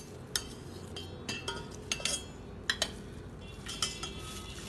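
Metal slotted spoon clinking against the side of a metal cooking pot as boiled rice-flour dumplings are scooped out of the water: about nine light, irregular clinks, each ringing briefly, over a low steady hum.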